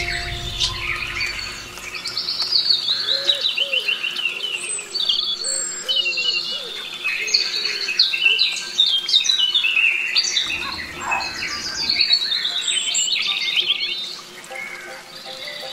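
Wild songbirds singing: a busy chorus of chirps and quick descending trills, one phrase after another.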